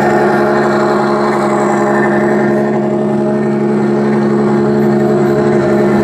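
Steady engine-like drone from a radio-controlled scale truck's electronic sound module, holding an even pitch throughout.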